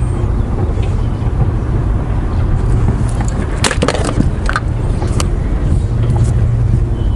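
Wind rumbling steadily on the microphone, with a few light clicks and taps of fishing tackle being handled about halfway through.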